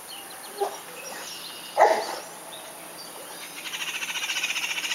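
A dog gives one short yelp about two seconds in. Near the end a rapid, high-pitched trill of about ten pulses a second runs for around two seconds.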